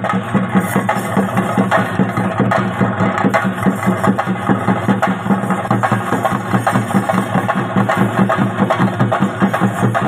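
Chenda drums beaten in a fast, dense, unbroken rhythm, the percussion that accompanies a Theyyam ritual.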